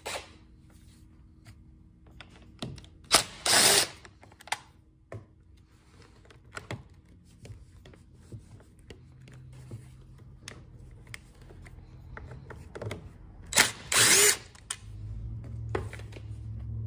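Cordless drill-driver spinning out the T27 Torx screws that hold the top cover on a Stihl FS110 trimmer, in two short bursts about three seconds in and again near fourteen seconds, with light clicks of the bit and screws being handled in between. A low hum comes in near the end.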